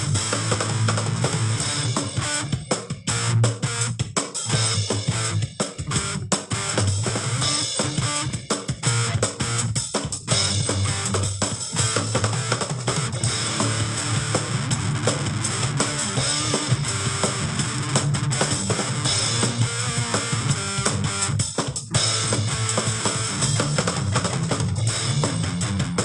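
Rock instrumental of electric guitar riffs over drums and bass guitar, playing continuously with a few brief breaks.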